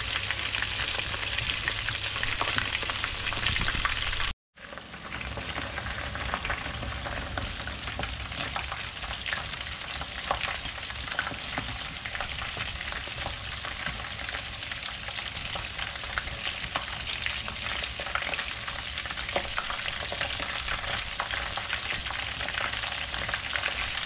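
Battered shrimp deep-frying in a pan of hot oil: a steady sizzle full of small crackling pops. The sound drops out completely for a moment about four seconds in, then resumes.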